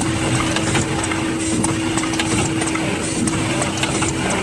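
Automatic magnet and iron-sheet pasting machine running: a steady motor hum over a low rumble, with scattered light mechanical clicks.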